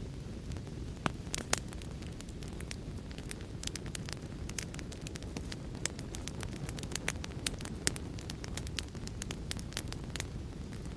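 Fireplace fire crackling, with many sharp snaps and a few louder pops over a steady low rumble of the flames.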